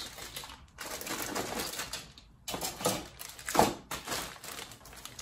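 Clear plastic bags holding model-kit sprues crinkling and rustling as they are handled, in irregular bursts with a short pause about two seconds in.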